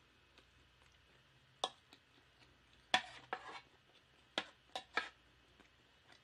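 A wooden spoon knocking and scraping against a metal tray while scooping fried rice: a single click, then a louder scrape about three seconds in, and three quick clicks near the end.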